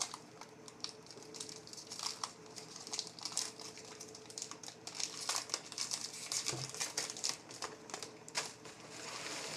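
Crinkling and rustling of trading-card packaging and cards being handled: a steady run of small, irregular crackles.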